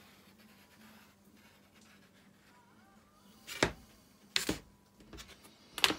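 Stick of chalk scraping faintly along a plastic ruler on an MDF board, then three sharp clacks about three and a half, four and a half and six seconds in as the ruler is shifted and set down on the board.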